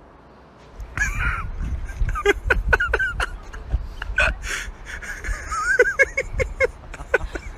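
A cat making short chirping calls, mixed with sharp clicks and taps as its paw works at a glass sliding door. The sounds begin about a second in and come in quick, irregular bursts.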